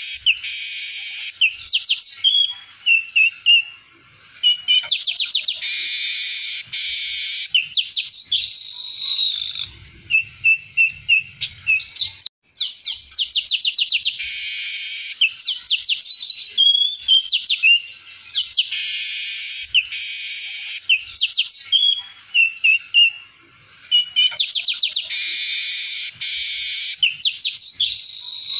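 Male weaver (manyar kembang) singing: buzzy, hissing bursts about a second long alternate with fast rattling clicks and short whistled notes. The phrase repeats roughly every five seconds.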